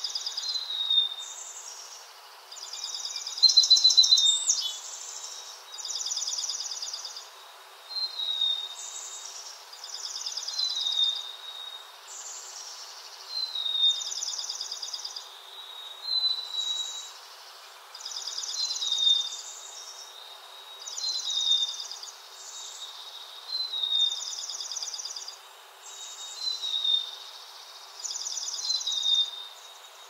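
A songbird repeating a short high phrase about every two and a half seconds: a fast buzzy trill followed by a brief falling note, with one louder phrase about four seconds in.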